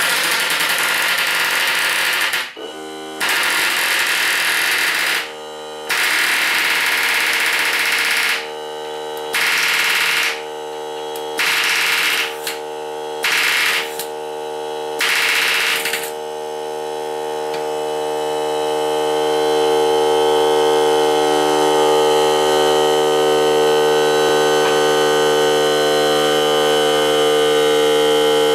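Pneumatic palm nailer hammering in about seven or eight bursts of one to two and a half seconds, over the steady electric hum of a Ryobi 18V cordless air compressor. The nail is not driving in. After about 16 seconds the nailer stops and the compressor motor runs on alone, rising a little at first.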